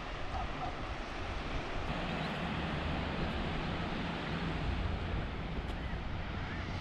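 Wind noise on the microphone over the steady wash of ocean surf.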